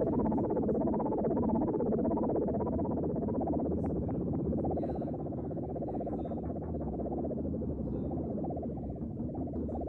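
Background synthesizer music, steady and dense, easing slightly in level in the second half.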